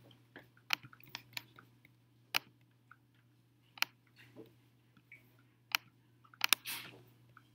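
Scattered sharp clicks of a computer mouse and keyboard in use, irregular and a second or so apart, with a short rustle near the end and a low steady hum underneath.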